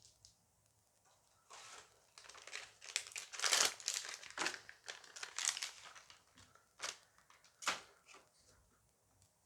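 A Dice Masters foil booster pack being torn open and crinkled by hand, the crackling loudest in the middle, followed by a couple of sharp clicks near the end.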